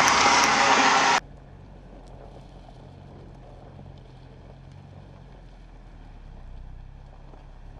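Loud hiss of pressure-washer spray hitting a Ford Bronco's front bumper and grille, cutting off suddenly about a second in. A faint, low, steady hum follows.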